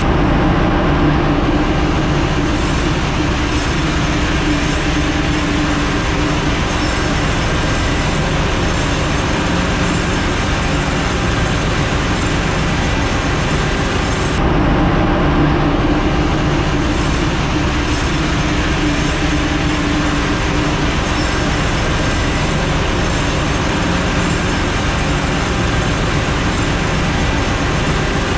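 Loud, steady drone of running engine-room machinery on a ship, dense and unbroken with a few steady hum tones. It shifts abruptly about halfway through.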